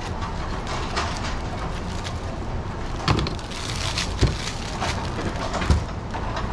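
A plastic bag crinkling around a freshly peeled pineapple, with a few sharp knocks of the fruit and cleaver on the cutting board, loudest about four seconds in and again near the end, over a steady low rumble.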